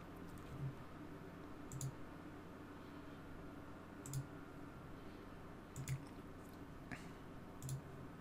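Faint computer mouse clicks, about six at irregular intervals with one quick double-click, over a low steady room hum.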